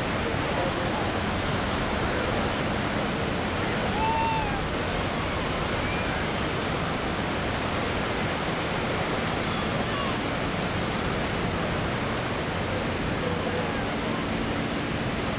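Steady rushing wash of outdoor noise with faint chatter of voices and a few brief high chirps.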